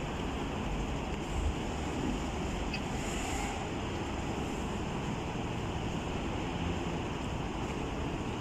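Steady outdoor background noise: a low rumble with an even hiss over it, and a brief brighter hiss about three seconds in.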